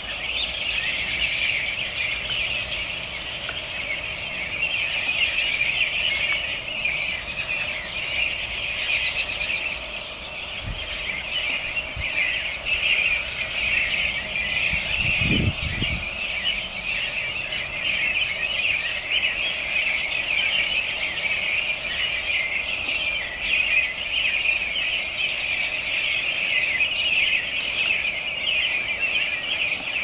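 Many unseen birds calling together, a dense, unbroken chorus of short, high chattering calls, like a large flock in bare trees.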